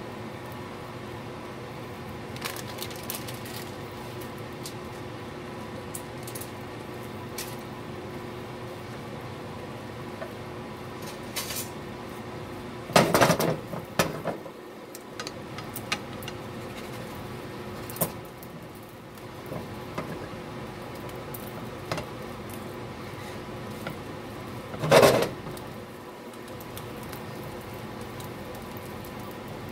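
Wooden spoon knocking and scraping against a nonstick frying pan, loudest in two short clatters about 13 seconds in and again near 25 seconds, with small clicks between. A steady hum runs underneath.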